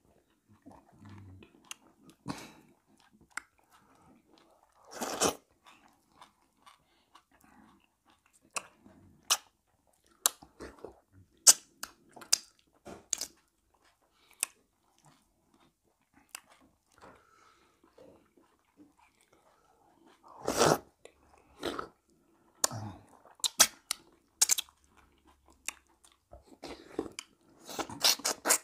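Eating sounds of fufu and seafood okra soup: chewing, with many short, sharp crunches and mouth clicks coming irregularly. Louder bursts come about five seconds in, about twenty seconds in, and near the end.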